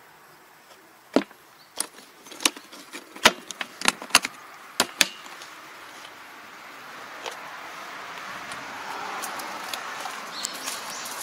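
A red plastic tractor toolbox being handled and shut: a quick series of about a dozen sharp clicks and metallic clinks over about four seconds, as the spare rotary tiller blades inside shift and the lid closes. From about seven seconds a soft, steady rushing noise rises.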